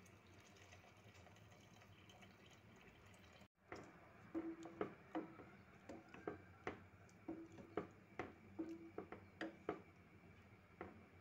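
A faint steady hiss from the steaming pot of peas and meat stops suddenly. Then a spoon stirs the pea and meat stew in a stainless steel pot, the liquid sloshing, with about a dozen sharp clicks and short scrapes of the spoon against the pot.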